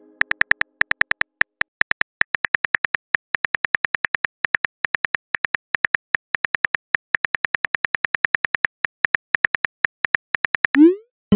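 Keyboard tap sound effects of a texting-story app: a rapid, uneven stream of short clicks as a long chat message is typed out. Near the end comes a short rising whoosh as the message is sent.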